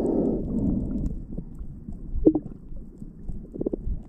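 Muffled underwater sound from a submerged camera: a low rumble of moving water, louder in the first second and then fading, with two brief higher sounds about two seconds in and near the end.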